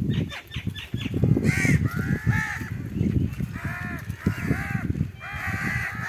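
Several crows cawing, about five harsh calls over a few seconds, with a steady low rumble underneath.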